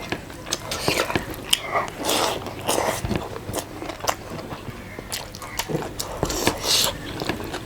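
Close-miked eating: a person biting and chewing food, with many short wet mouth clicks and smacks.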